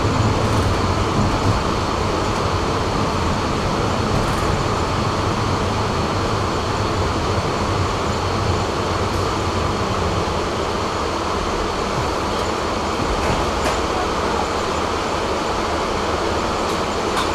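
Tram running steadily along its track, heard from on board: a continuous rumble of wheels and running gear with a steady high whine and a few faint clicks.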